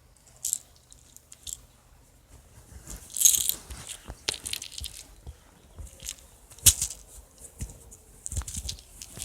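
Slime being squeezed and worked by hand, giving irregular crackles, clicks and pops, with a loud hissing crackle about three seconds in and a sharp pop near seven seconds.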